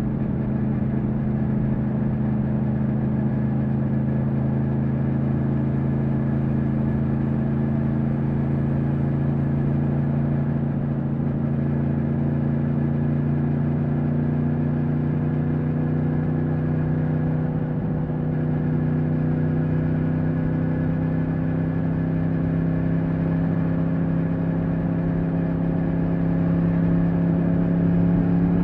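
2020 Yamaha MT-10's crossplane inline-four engine running steadily on the move, its pitch rising slowly through the second half as the bike gains speed.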